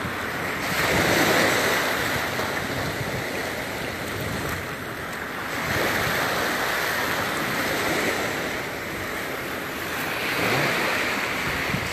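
Small Gulf of Mexico waves breaking and washing up the beach, the rush swelling every few seconds, with some wind on the microphone.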